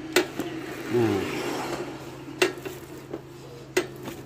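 Motorcycle rear wheel with its drum brake hub spinning on the stand, a whirring rush as it is set turning, with a brief falling squeak about a second in. Sharp metallic ticks come every one to two seconds, three times in all.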